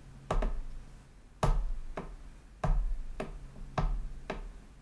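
Four finger taps on the buttons and pads of a Wolfmix W1 lighting controller, each a short click with a soft thump, evenly spaced about a second apart, over a faint low hum.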